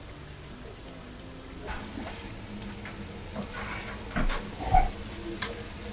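Kitchen work sounds: a steady hiss under a scatter of clicks and knocks from utensils, with the loudest knocks about four to five seconds in.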